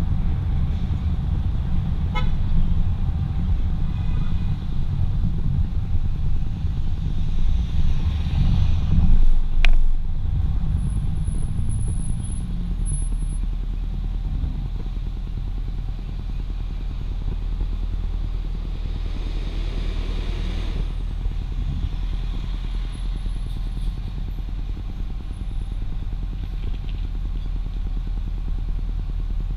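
Low, steady rumble of wind and road noise on a hood-mounted camera as a car moves slowly through street traffic. It is heaviest for the first ten seconds or so, then settles to a lower, even hum, with one sharp click about ten seconds in.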